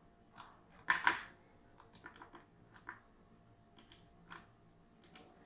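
Scattered soft clicks of a computer mouse and keyboard, a dozen or so irregular clicks with the loudest pair about a second in.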